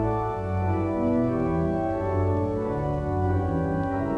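Organ music playing slow, sustained chords that change every second or so.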